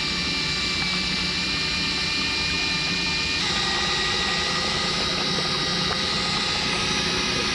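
Cordless electric drill running steadily as a makeshift outboard, spinning a dinghy's propeller through a one-to-one shaft: a continuous motor whine over water churning from the propeller wash. The whine's high tone drops slightly about three and a half seconds in.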